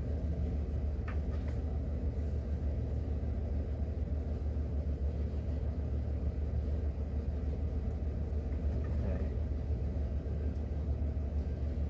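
A steady low mechanical hum and rumble from the running engine-driven power plant of a mobile grooming van, unchanging throughout.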